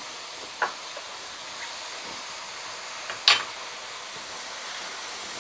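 Mutton pieces and onions sizzling steadily in oil and their own juices in a stainless steel pan, with two short sharp clicks, a small one near the start and a louder one a little past halfway.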